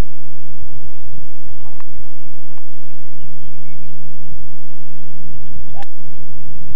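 A golf club strikes a golf ball in a full swing: one sharp crack about six seconds in, over a steady low hum.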